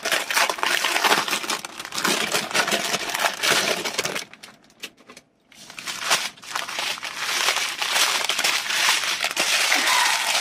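Clear plastic packaging crinkling and rustling as a wrapped bundle of bagged diamond painting drills is opened and handled by hand, in two spells with a quieter pause about four seconds in.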